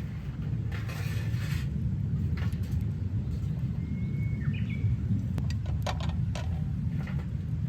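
A steady low rumble, with a few sharp snaps about three-quarters of the way through, like kindling cracking in a newly lit campfire. A short high bird chirp about halfway.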